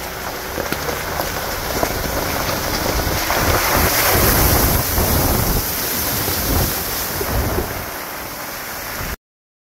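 Car tyres rolling over a wet gravel road with wind buffeting the microphone, swelling to its loudest about four seconds in as the front wheel ploughs through a puddle and sprays water, then easing; the sound cuts off abruptly near the end.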